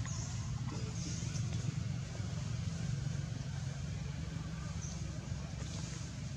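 A steady low rumble, like a motor running or traffic, with a few brief faint high chirps near the start and about five seconds in.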